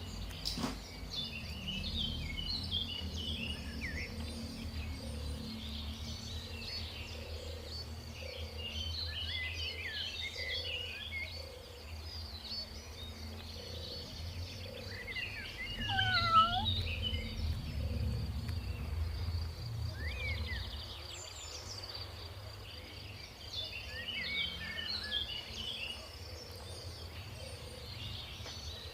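Outdoor ambience: birds chirping in scattered bursts of short calls over a steady high buzz and a low rumble. One louder, curving call stands out about 16 seconds in.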